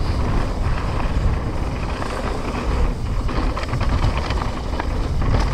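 Trek Slash 9.9 enduro mountain bike ridden fast downhill on a rough trail: a steady low rush of wind on the action camera's microphone, with many small clicks and rattles from the tyres, stones and drivetrain, more of them in the second half.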